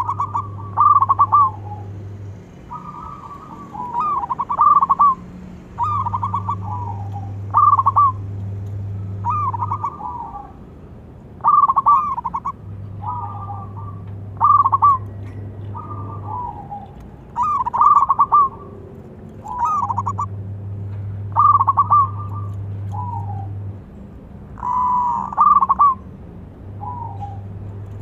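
Zebra dove (perkutut) cooing: phrases of rapid staccato notes, repeated roughly once every second or so.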